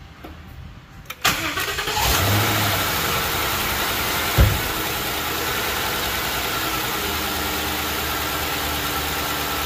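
Lincoln Town Car's 4.6-litre V8 cranked by the starter about a second in, catching and settling into a steady idle, with one short loud thump a few seconds in. This is the engine's first run after the water pump replacement.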